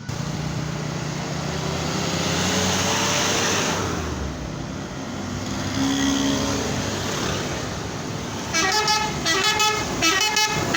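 Heavy traffic passing close by, with engine and road noise, then near the end a bus's Basuri telolet multi-tone horn plays a quick run of short notes.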